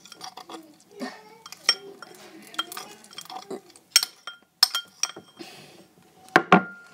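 Spoon clinking against a bowl as slime is stirred: irregular sharp clinks with a short ring, about one or two a second, the loudest pair near the end.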